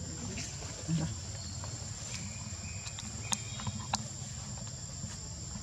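Steady high-pitched drone of insects, with two sharp clicks a little past the middle.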